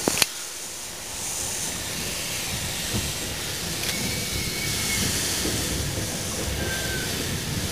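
Narrow-gauge steam train running slowly, a steady hiss over the low rumble of the carriage. A sharp click comes just after the start, and two brief thin squeals are heard about four and about seven seconds in.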